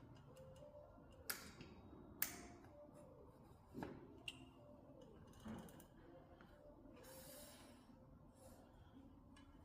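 Quiet hand-work on bicycle parts: two sharp metallic clicks about one and two seconds in, then a few softer knocks and creaks, with another click about four seconds in.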